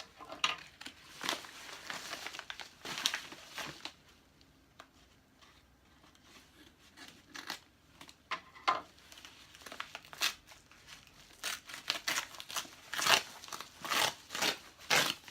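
Parcel packaging being crinkled and torn open by hand: irregular rustling and ripping, sparse for a few seconds in the middle and busier near the end.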